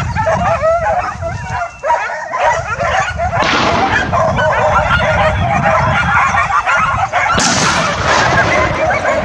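A pack of hunting dogs yelping and barking in a dense, overlapping chorus as they bay and catch a wild boar.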